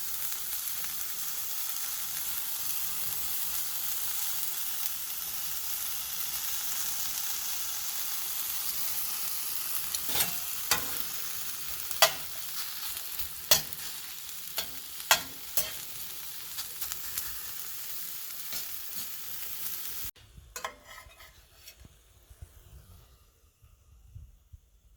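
Onions and mushrooms sizzling in a frying pan as they are stirred, with a utensil knocking against the pan a handful of times in the middle. The sizzle cuts off suddenly near the end, leaving only a few faint clinks.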